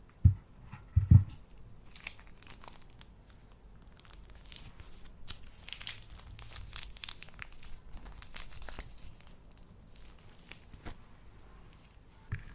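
Two dull thumps in the first second, then slime being squished and pulled by hand, crackling and crinkling with many small pops.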